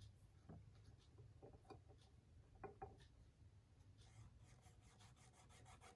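Near silence: faint, scattered clicks and scratches of writing or swatching ink on paper over a low steady hum.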